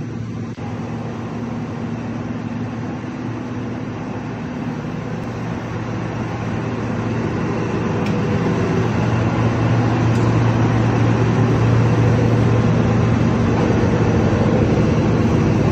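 Wirtgen W120 XFi cold milling machine running, a steady low diesel hum that grows louder about halfway through.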